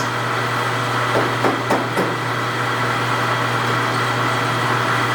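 Steady machine hum in a machine shop, with a few light knocks of tools being handled about a second in.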